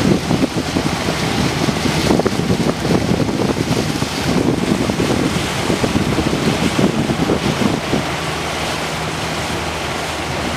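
Wind buffeting the microphone aboard a slowly moving boat, with water noise. A steady low motor hum shows through more clearly near the end.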